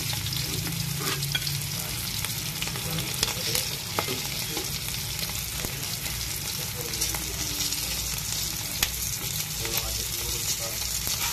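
Tuyo (dried salted fish) sizzling as they fry in oil in a wok, with a metal spatula stirring and scraping against the pan. A few sharp clicks stand out, about three, four and nine seconds in.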